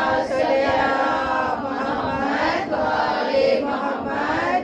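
Chanted Arabic religious recitation: a voice drawing out long, held melodic phrases.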